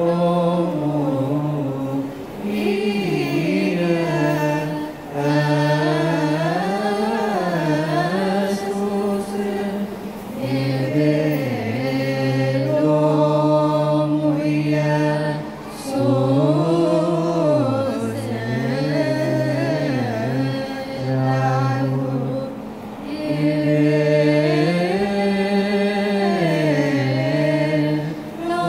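Choir chanting a wereb, an Ethiopian Orthodox hymn, in long held notes with slow melodic turns, sung in phrases of several seconds with short breaks between them.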